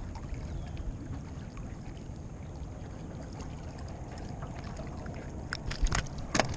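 Wind rumbling on the microphone with water lapping at a small boat. Near the end come a few sharp knocks and splashes as a small fish is handled on a lure and let back into the water.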